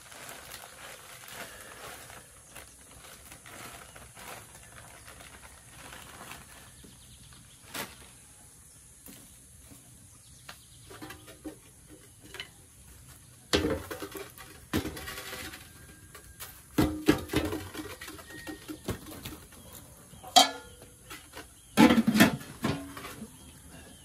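Light handling of a plastic bag of dried tea leaves, with soft rustling, then a series of sharp knocks and clatters as things are moved about around a concrete wood stove.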